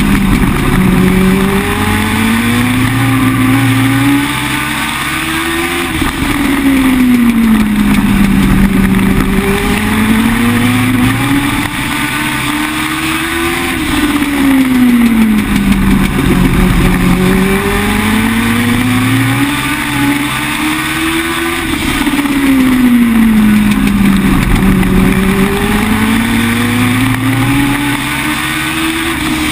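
Legend car's Yamaha 1200 cc four-cylinder motorcycle engine, heard from inside the cockpit while racing laps on a short oval. Its pitch climbs along each straight and drops into each turn, about every eight seconds.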